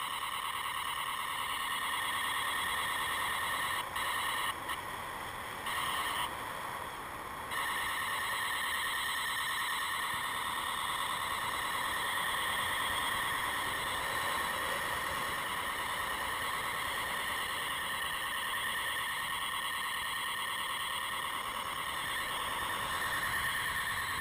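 A steady high whistling tone with several overtones, wavering slightly, that drops away briefly a few times in the first eight seconds and then holds.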